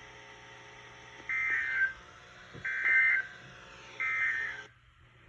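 NOAA Weather Radio end-of-message data bursts, the SAME 'NNNN' code closing the alert: three short digital screeches, evenly spaced about a second and a half apart, over a steady broadcast hiss. Near the end the transmitter's hiss cuts off suddenly.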